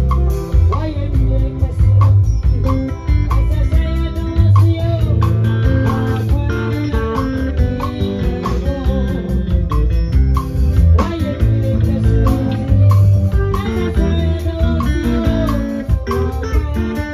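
Live band playing a gospel song: drum kit keeping a steady beat, bass guitar, electric guitar and keyboard, with a woman singing into a microphone.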